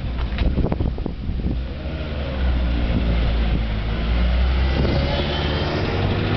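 Racing cars' engines running as they drive slowly down a pitlane, with an open-cockpit sports racer passing close. A steady engine drone builds from about two seconds in. Wind buffets the microphone in the first couple of seconds.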